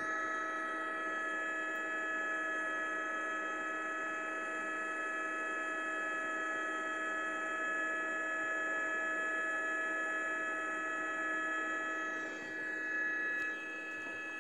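A steady electronic hum of several held tones, with no change in pitch, dipping briefly in level near the end.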